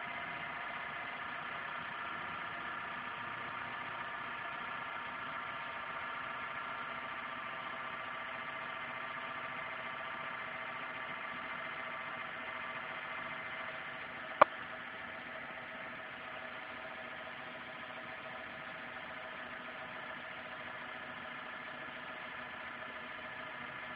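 Daihatsu YRV running steadily at idle, with a whine of several steady tones: the extraneous noise the owner is recording. One sharp click a little past halfway, after which it runs slightly quieter.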